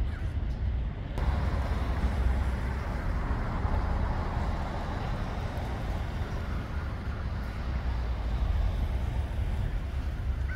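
Road traffic on a town street: a vehicle passes, loudest a few seconds in, over a steady low rumble.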